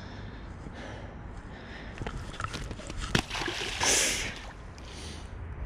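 A black buffalo released into a creek hits the water with one splash about four seconds in. A sharp knock comes just before it, over the light rustle of the fish being handled.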